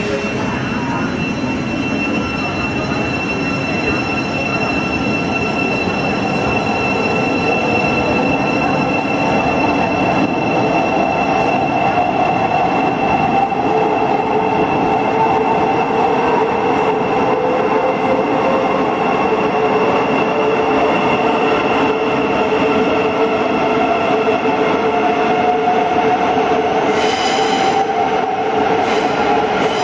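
Thameslink Class 700 electric train pulling out of an underground platform, its motor whine slowly rising in pitch as it gathers speed, over a steady high-pitched squeal and the rumble of the wheels. A few short clanks come near the end.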